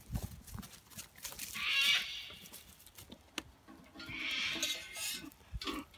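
Two harsh, drawn-out animal calls, one about a second and a half in and another about four seconds in, with faint clicks between.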